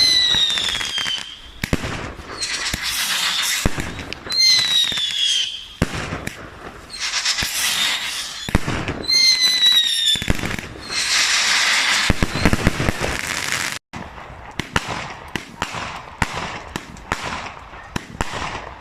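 Fireworks going off: three falling whistles, each among loud stretches of crackling bursts. Later comes a rapid run of many sharp cracks.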